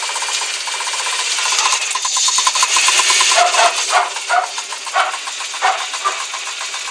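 Car engine running cold with the rapid, even ticking of its hydraulic valve lifters: the lifters knock until oil pressure fills them on a cold start. A hiss swells briefly in the middle.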